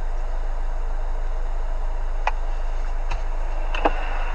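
Steady car cabin noise from a running car: a low hum under an even hiss, with a few faint clicks in the second half.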